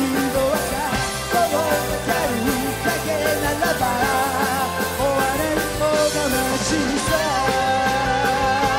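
Live rock band playing, with a male lead vocalist singing into a microphone over electric guitars and drums. A held note comes in about seven seconds in.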